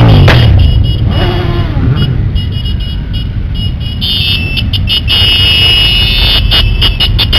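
A procession of motorcycles riding slowly past one after another, engines rumbling, their note rising and falling as each machine goes by. From about four seconds in, a high steady tone sounds over the engines.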